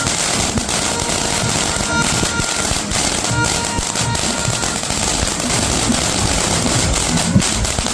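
Golden Rooster three-minute fountain firework burning: a steady hissing spray with dense crackling and one sharper crack near the end, over background music.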